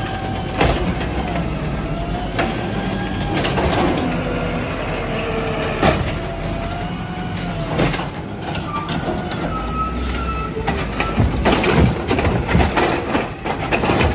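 Peterbilt 320 automated side-loader garbage truck on compressed natural gas running at the curb while its hydraulic arm lifts, dumps and sets down trash carts: a whine that rises and falls as the arm works, over the steady engine, with several sharp bangs of the carts and arm, most of them in the second half.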